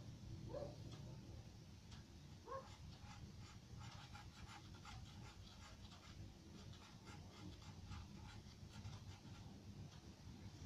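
Faint scratching of a charcoal pencil shading on paper in quick, short strokes over a low hum. Two short rising squeaks, one just under a second in and one about two and a half seconds in, come before the strokes.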